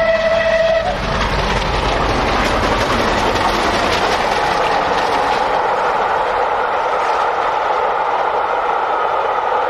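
Train passing: a horn ends about a second in, then the steady rolling noise of wheels on rails, with a low rumble that fades after about five seconds.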